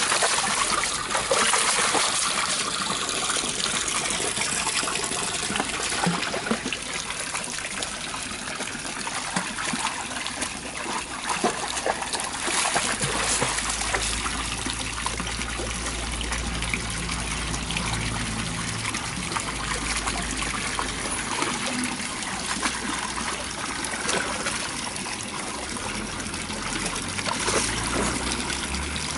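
Water running and trickling steadily, with a low rumble joining in about halfway through.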